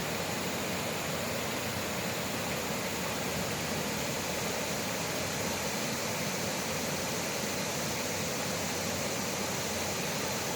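Waterfall: falling water rushing as a steady, even hiss.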